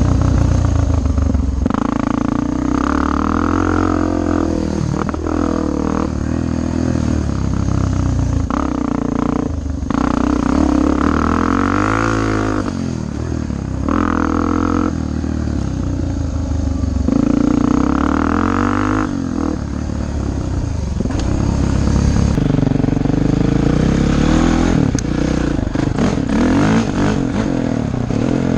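Four-stroke single-cylinder dirt bike engine revving up and dropping back again and again as the rider accelerates and backs off around the track.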